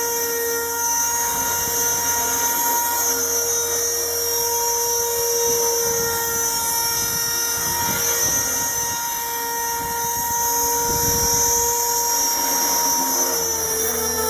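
Razor 400 RC helicopter's brushless electric motor and main rotor running steadily in flight, a high, drill-like whine with a constant pitch. The pitch shifts slightly near the end.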